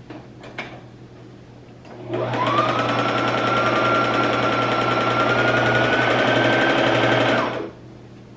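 Brother XM2701 mechanical sewing machine run by its foot pedal. After a couple of small clicks, the motor starts about two seconds in with a whine that rises as it speeds up. It runs steadily for about five seconds with rapid, even needle ticks, then stops.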